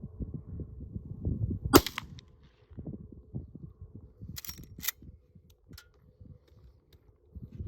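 A single shot from a Henry Big Boy lever-action rifle in .44 Magnum, firing a 240-grain factory round, about two seconds in. A few seconds later come two sharp metallic clacks about half a second apart, the lever being worked to chamber the next round.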